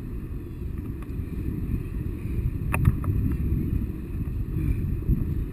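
Wind rumbling and buffeting on the camera microphone from the airflow of a tandem paraglider in flight, with one sharp click about three seconds in.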